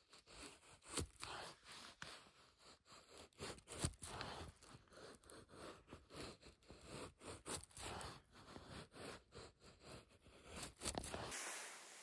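Scandi-grind knife blade shaving thin curls off a wooden stick while carving a feather stick: a run of short, irregular scraping strokes, about one or two a second.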